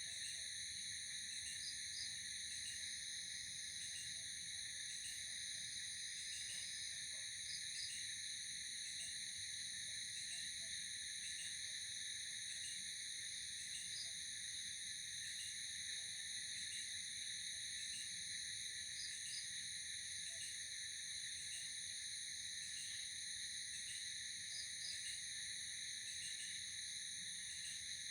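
Night chorus of insects, likely crickets, making a continuous high-pitched trilling drone, with short chirps repeating on top every second or so.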